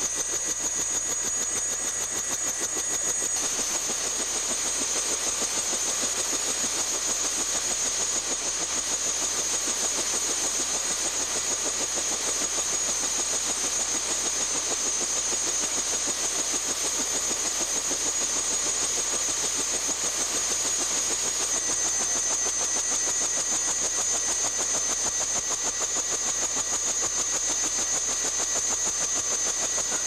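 UH-1 Huey helicopter's turbine engine running steadily: a constant rushing noise with a steady high whine.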